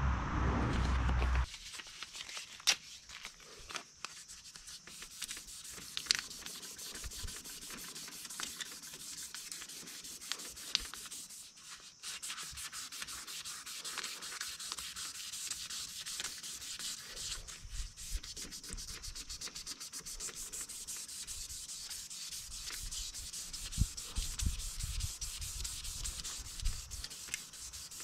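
Hand sanding a knife part with fine sandpaper: a steady, faint scratching of repeated back-and-forth strokes. A louder low noise stops abruptly about a second and a half in.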